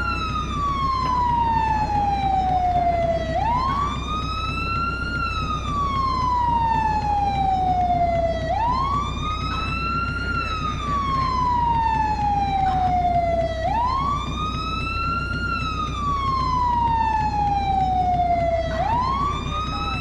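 American fire truck siren on the wail setting. The tone climbs quickly, then slides slowly back down, repeating about every five seconds for roughly four cycles, over a steady low rumble.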